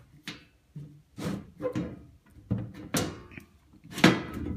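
Sheet-metal cover of a Cutler-Hammer 200 amp automatic transfer switch enclosure being worked open by hand: a series of metal knocks, rattles and scrapes, with the loudest clank about four seconds in.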